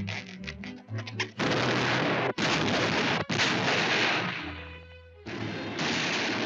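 Cartoon soundtrack: a moment of orchestral music, then a loud stretch of noisy sound effect, like a long explosion or gunfire. It breaks twice, dies away, and starts again near the end.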